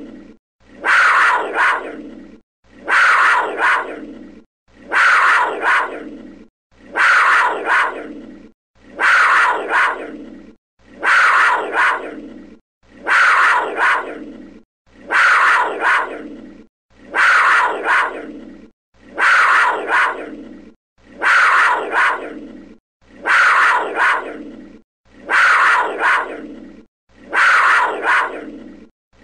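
Panther call, about a second and a half long and fading away, repeated every two seconds as the same recording looped over and over.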